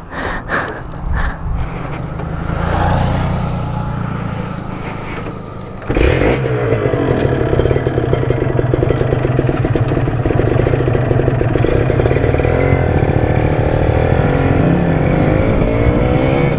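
Sport motorcycle engine running as the bike sets off. About six seconds in the sound jumps louder and turns into steady riding noise: the engine at speed under wind rushing over the helmet-mounted camera's microphone.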